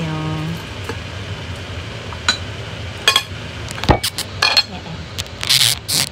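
A plate being handled and moved: a few light clinks with brief ringing, a sharp knock, then a scraping rub near the end.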